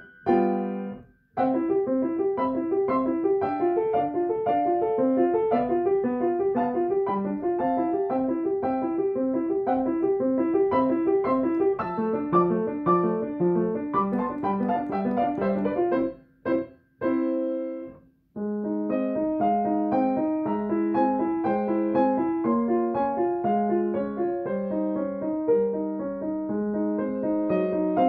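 Steinway & Sons grand piano played slowly, a steady run of short, detached notes. The playing stops briefly about a second in, and again for a couple of seconds around two-thirds of the way through.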